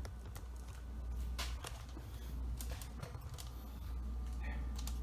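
Scattered rustles and light clicks from a heavy boxed resin bust and its packaging being handled, over a steady low hum.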